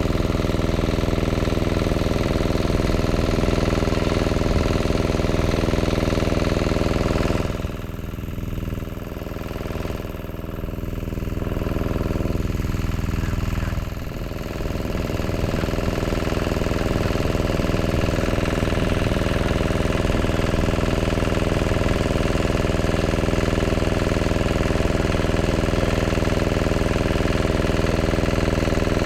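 Small engine running steadily at a constant speed, its level dipping for a few seconds around 8 and 14 seconds in.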